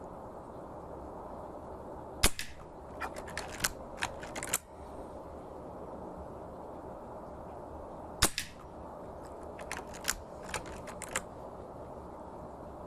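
Two air rifle shots, each a sharp crack, about six seconds apart, each followed by a run of lighter clicks.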